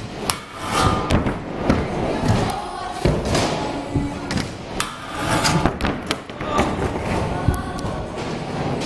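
Scooter riding in a skatepark: wheels rolling over the ramps and flat, with repeated thuds and clacks of scooters landing and hitting the rails and ramp surfaces.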